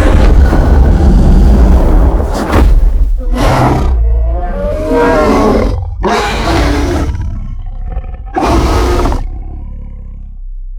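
Mutadon creature sound effects: one long, loud roar, then about four shorter roars in quick succession, and a quieter call near the end.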